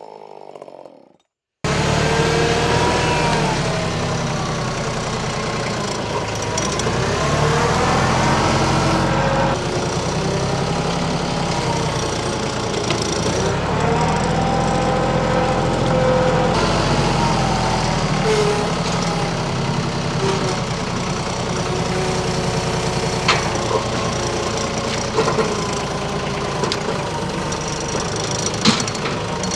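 After a brief gap, a TYM 2515H compact tractor's diesel engine running steadily, its pitch rising and falling again and again as it works under load, with a few sharp knocks in the second half.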